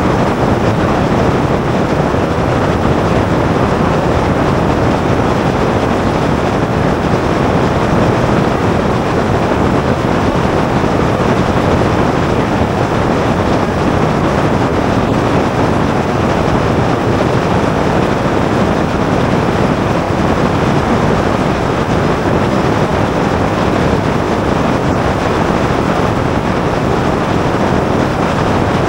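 Columbia 400 light aircraft in flight, heard through a camera mounted outside the airframe: a loud, steady, unchanging rush of airflow and engine noise.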